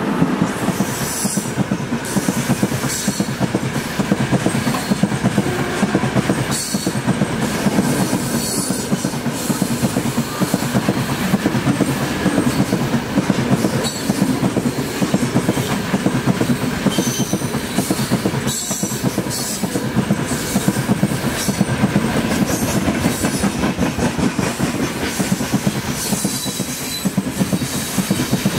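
Freight train wagons rolling past at speed, the wheels clattering in a steady run of clicks on the rails.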